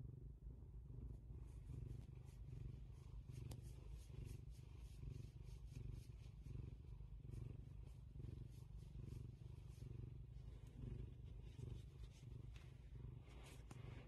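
Domestic tabby cat purring steadily, a faint low rumble that swells and eases in waves with its breathing, with soft rustling over it.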